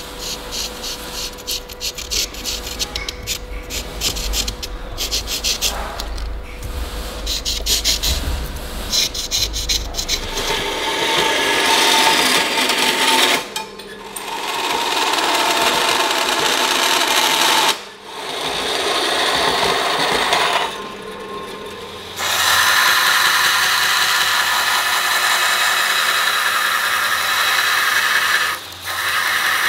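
Quick scratchy strokes of a marker tracing a knife outline onto a damascus steel blank. Then a small bandsaw cuts through the steel with a steady noise, pausing briefly three times. About 22 seconds in, a belt grinder takes over, grinding the blade's profile with a steady hiss.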